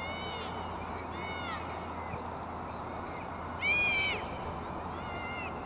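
Four short, high, honk-like calls, each rising and falling, over a steady rush of outdoor noise; the third call, about two-thirds of the way in, is the loudest.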